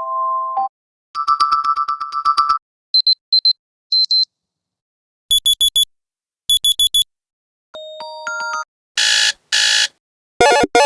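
Xiaomi Redmi 9a phone playing one alarm tone after another, each for a second or two with short silences between. The tones run from plain electronic beeps, some in pairs, to a short climbing run of tones, with buzzy rapid pulsing near the end.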